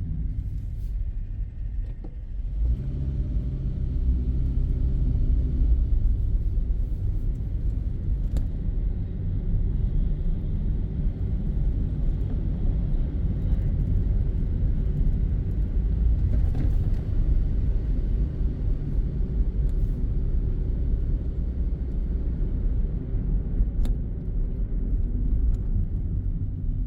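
Car's engine and tyre rumble heard from inside while driving on city streets. The rumble dips briefly, then grows louder and steadier about two and a half seconds in.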